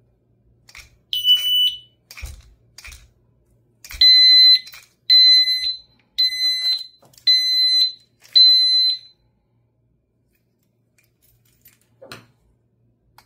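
Electronic alarm built into a battery-powered U-lock beeping, now powered by its new CR2 battery. One short single-tone beep comes about a second in, then five loud two-tone beeps at about one a second. Light clicks and a knock of the metal lock being handled come between and after them.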